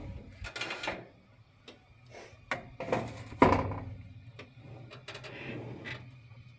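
Metal baking tray clattering and scraping on a preheated oven's rack as it is slid in: a string of separate knocks and scrapes, the loudest about three and a half seconds in, over a low steady hum.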